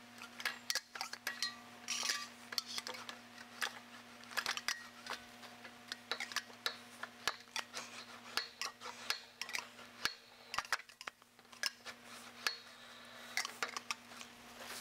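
Sheet-metal motorcycle fender being rolled back and forth through a Harbor Freight English wheel fitted with a 2-inch lower anvil wheel, rolling out a peak: irregular light metallic clinks and scrapes as the panel shifts between the wheels. A steady low hum runs underneath.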